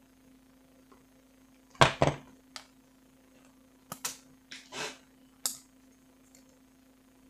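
Handling knocks and clicks of graphics-card parts and heatsink being taken apart: a loud double knock about two seconds in, then scattered clicks and a short scraping rustle. A faint steady low hum runs underneath.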